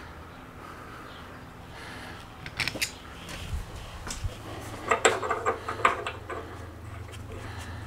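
Brass pipe fittings and metal tools clinking and rattling as they are handled: a few sharp clinks about two and a half seconds in, then a quick cluster of clinks around the fifth to sixth second.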